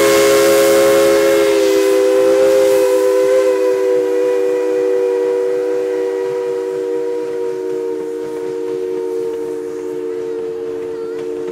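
Steam locomotive's chime whistle sounding one long chord of several notes, slowly fading. A hiss of steam accompanies it at the start and dies away within about two seconds.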